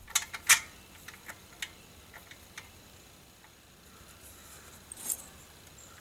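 Light clicks and taps of hands handling a plastic pipe and its brass fitting, with a sharper clatter about half a second in, scattered small ticks, and another brief knock near five seconds.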